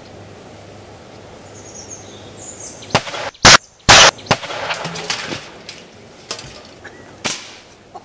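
Car airbag going off inside a microwave oven and blowing it apart: a sharp crack, then two very loud bangs in quick succession, followed by debris and metal panels clattering down for a couple of seconds, with a few more knocks after.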